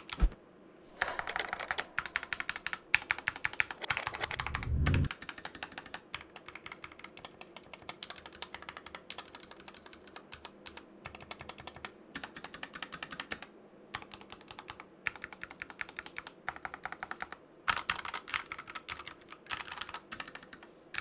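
Typing on a custom mechanical keyboard with Tangerine linear switches and PBT keycaps: quick runs of key clacks broken by short pauses, with a deeper thump about four to five seconds in.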